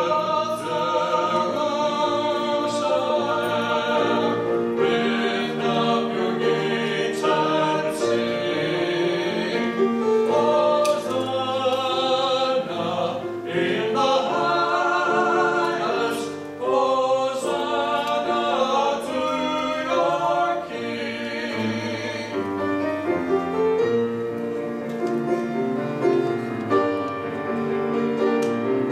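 Two men singing a duet with vibrato on long held notes, over piano accompaniment.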